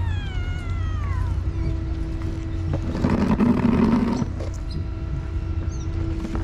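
A stray cat meows once, a long call falling in pitch. About three seconds in there is a louder, rough, noisy sound lasting about a second, over a steady low rumble.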